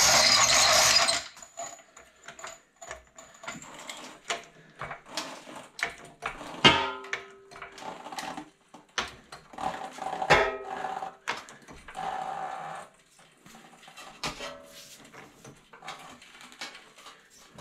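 Floor jack being worked under the front of a 2003 Chevrolet Trailblazer to lift it off the ramp and let it back down. A brief loud rush of noise at the start, then scattered clicks and knocks with several short creaking squeaks.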